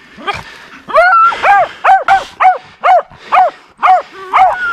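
Deer-hunting dogs barking close by in a rapid series, about two barks a second, starting about a second in.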